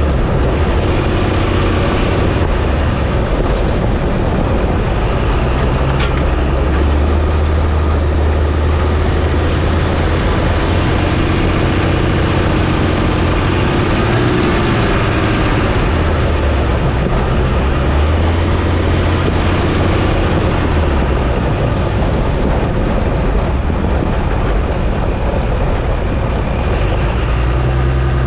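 Pickup truck on the move, a steady loud engine and road rumble, with a faint high whistle that rises and falls several times.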